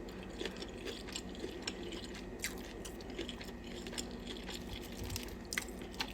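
A person chewing food close to the microphone: soft, scattered wet mouth clicks over a faint steady hum.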